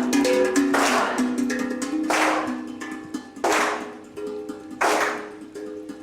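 Music of held, pitched notes changing in a slow melody, with a sharp group hand clap on the beat about every 1.3 seconds. It fades steadily.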